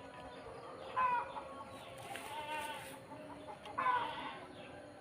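Bird calls: two short, loud squawks about a second in and near the four-second mark, with a softer call between them.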